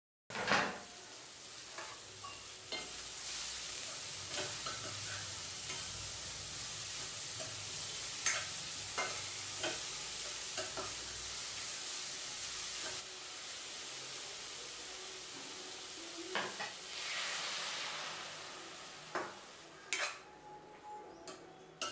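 Flat beans sizzling in a hot metal kadai while a metal spatula stirs them, with sharp clicks and scrapes of the spatula against the pan every second or so.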